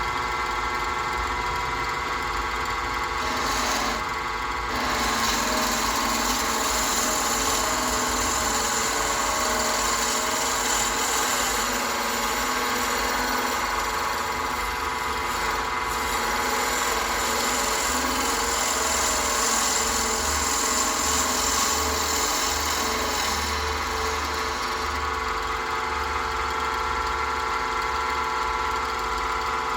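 Wood lathe running steadily with a hum of several fixed tones. A hissing scrape of the pen blank being shaped against the spinning stock rises about five seconds in and eases near the end.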